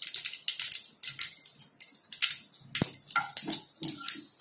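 Cumin seeds crackling and popping in hot oil during tempering, a string of irregular sharp pops that shows the oil is hot enough. There is one heavier knock a little past the middle.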